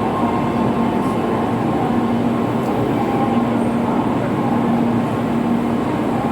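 Steady station platform ambience with a constant hum, typical of a Shinkansen train standing at the platform with its equipment running.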